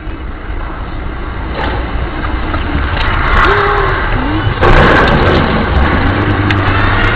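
Dashcam recording from inside a moving car: steady engine and road noise growing louder, with a few short pitched cries over it and a sudden loud rush of noise about five seconds in.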